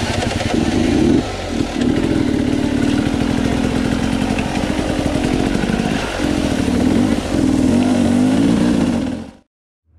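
Dirt bike engine running in low gear on a trail, its pitch rising and falling as the throttle is worked. The sound cuts off suddenly about nine seconds in.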